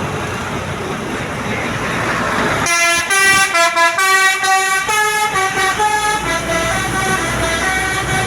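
Road and engine noise, then about three seconds in a tour bus's telolet horn starts playing a quick melody of changing notes, louder than the traffic.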